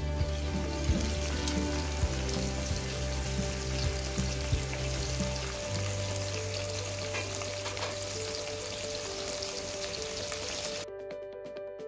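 Chicken karahi sizzling in hot oil in an open wok, a steady frying hiss that cuts off about a second before the end, with background music underneath.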